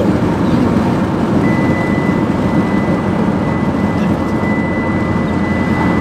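Car road and engine noise heard from inside the cabin while driving, a steady low rumble. From about one and a half seconds in, a thin steady high tone sounds over it.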